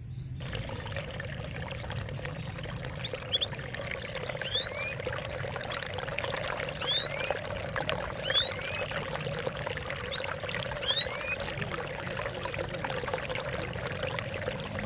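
Water trickling and splashing steadily, with short whistled calls sweeping down in pitch, repeated every second or so from a few seconds in.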